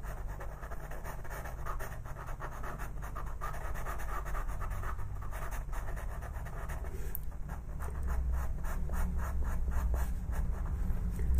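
Ochre pastel pencil scratching across textured pastel paper in quick, short shading strokes. A low rumble underneath grows louder in the last few seconds.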